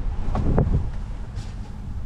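Wind buffeting the microphone: a gusty low rumble that swells briefly about half a second in, then eases.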